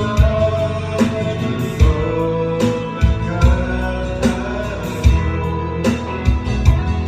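Singing over a rock-ballad band backing track, with guitar and regular drum hits.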